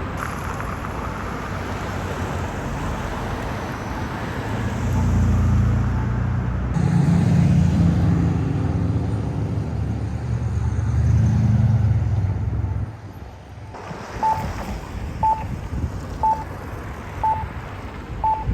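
Outdoor traffic-like noise: a heavy vehicle's low engine rumble swells for several seconds and then drops away about thirteen seconds in. After that comes a short, high electronic beep repeating about once a second.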